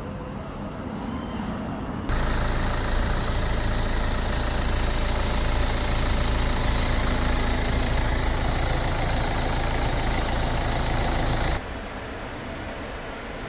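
Steady running of an idling engine or machinery while the air conditioning is recharged with refrigerant. It jumps abruptly louder about two seconds in and drops back just as suddenly near the end.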